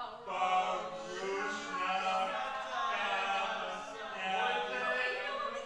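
A small group of voices singing together unaccompanied, in long held notes.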